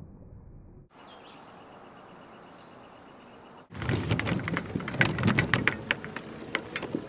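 Faint outdoor background at first, then about two-thirds of the way in a loud run of close knocks, clicks and rubbing: a manual wheelchair rolling up over wooden dock boards right next to the camera, and the camera being handled.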